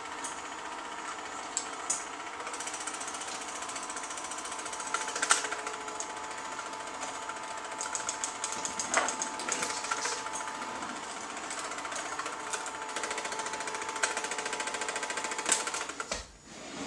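Film projector running, a rapid steady mechanical clatter with a steady whine and occasional clicks. It falls away abruptly near the end as the film runs out.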